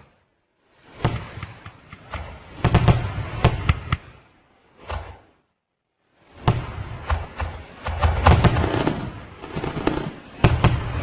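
Rapid, irregular series of sharp bangs and cracks over a low rumble, in three stretches separated by two abrupt silences, the second lasting about two seconds.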